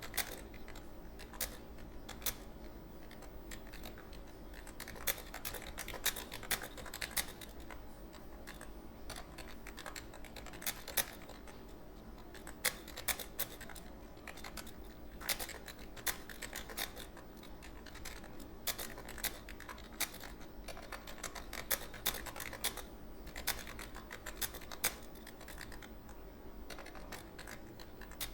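Computer keyboard being typed on in a fast, uneven run of key clicks, with a steady low hum underneath.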